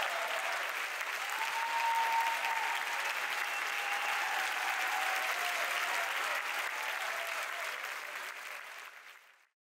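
Audience applauding, with a few voices calling out, dying away near the end.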